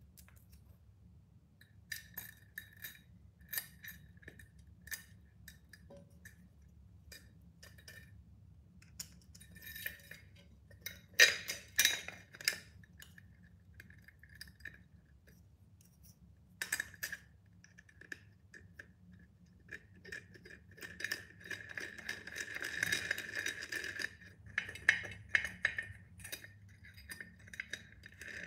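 Small metal fittings clinking and scraping against a tempered glass pot lid as its handle is fitted, in scattered sharp clicks with a light ring. The loudest clinks come about 11 seconds in, and a longer stretch of rattling comes around 21 to 24 seconds.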